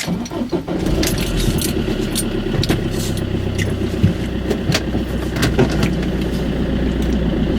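A car running steadily with a low hum, set off by many scattered sharp clicks and knocks. It starts abruptly.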